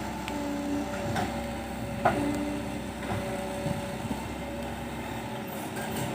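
Excavator's diesel engine running steadily, with short whining tones and a couple of sharp knocks; the loudest knock comes about two seconds in.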